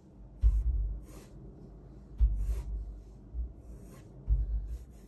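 Drawing strokes on sketchbook paper: about five short strokes with pauses between them, each with a dull low bump of the hand or book.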